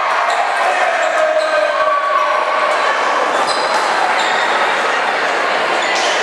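Gymnasium crowd yelling and cheering at the end of a volleyball rally, trailing off over the first couple of seconds into a steady hum of crowd chatter. A few short, high squeaks cut through it, likely sneakers on the hardwood court.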